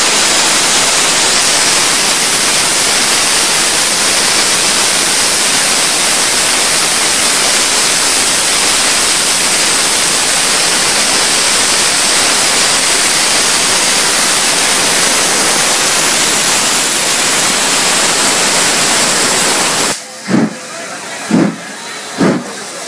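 Steam locomotive No. 13065, an LMS Hughes-Fowler 'Crab' 2-6-0, making a loud, steady hiss of escaping steam from around its cylinders as the train starts. The hiss cuts off suddenly about twenty seconds in and gives way to exhaust chuffs roughly once a second as the engine pulls away.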